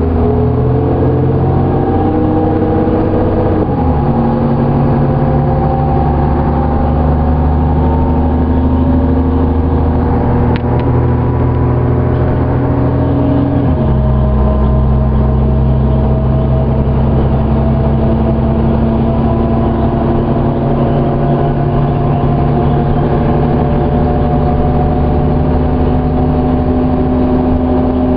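Cummins ISC inline-six turbodiesel of a New Flyer D35LF bus pulling under acceleration, heard from inside the bus, with the Allison B400R automatic upshifting twice: the engine note drops suddenly about four seconds in and again about fourteen seconds in. A higher whine rises steadily with road speed.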